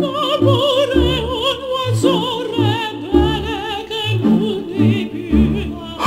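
Background music: a high singing voice with strong vibrato over a bass line that pulses about twice a second.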